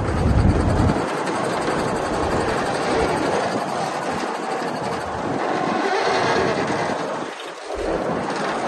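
Komatsu D60P crawler bulldozer at work: its diesel engine running with the steady clank and rattle of steel tracks, and a heavy low rumble in the first second.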